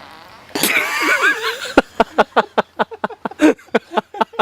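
A brief squeaky, wavering sound about half a second in, then a person laughing hard in quick, rapid bursts.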